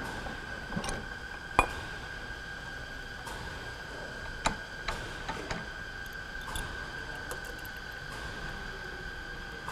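Small threaded metal pipe fittings clinking against a steel bench vise as the fitting assembly is set and clamped in it: a handful of sharp metallic clinks, the loudest about one and a half seconds in and another about four and a half seconds in.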